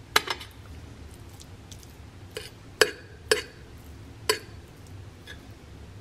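Metal fork clinking and scraping on a ceramic dinner plate while food is scooped up: about six short sharp clinks, two near the start and a cluster in the middle, the loudest almost three seconds in.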